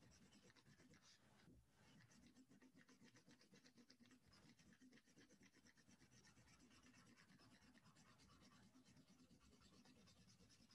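Faint, rapid scratching of a coloured pencil shading back and forth on plain copy paper.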